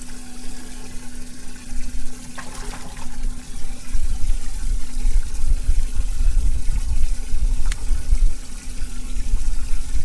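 Water running or splashing, with a steady low hum underneath and a heavy, uneven low rumble from about four seconds in; two brief knocks, one after about two seconds and one near the end.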